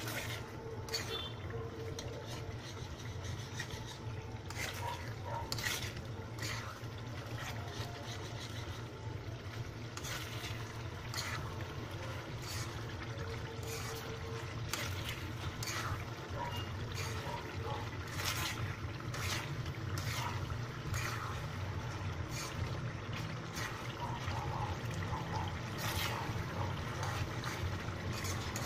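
Thickened sauce simmering in a metal wok while a spatula stirs it, with frequent short clicks and scrapes of the spatula against the pan, over a steady low hum.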